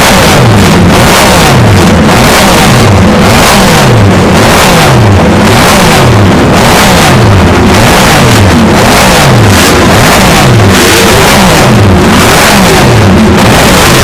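Classic MV Agusta multi-cylinder racing motorcycle engines, very loud, revved in quick repeated throttle blips, each one rising and falling away about one to two times a second.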